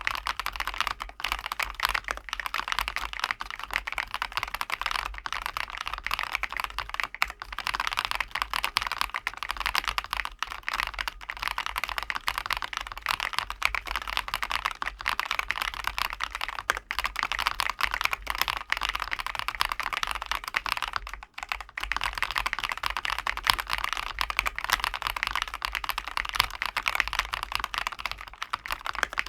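Rapid, continuous typing on a ROYAL KLUDGE M87 mechanical keyboard, a steady stream of key clacks with a brief pause about two-thirds of the way through.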